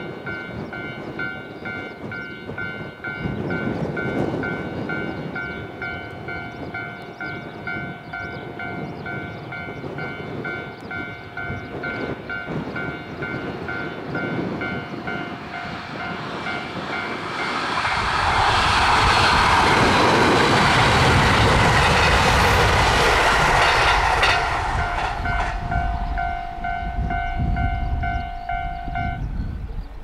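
Level-crossing warning bell ringing in even, repeating dings while a JR West limited-express electric train approaches and passes at speed. The train's rush and rumble swells about 17 seconds in, is loudest for several seconds, then fades. The bell stops near the end.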